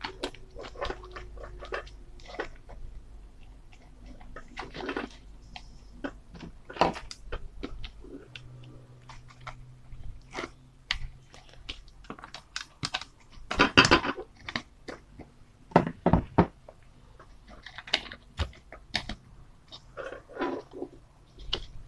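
Handling noise: irregular clicks, rustles and crunchy scraping as hands work a plastic tub lid, wire and a paper tube, and scrape copper wire with a blade. The loudest bursts come about 14 and 16 seconds in.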